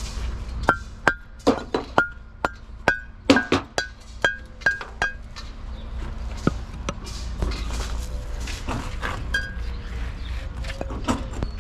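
Hammer striking metal, about a dozen quick blows, each with a short ringing note. Scattered lighter knocks and clatter follow.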